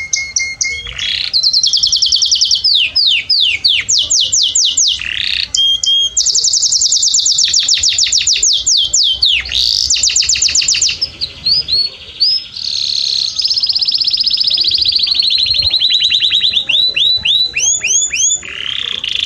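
Domestic canary singing a loud, unbroken song of fast trills. Each phrase is a rapid run of repeated high notes, some sweeping down and some held steady, and the song switches to a new phrase every second or two.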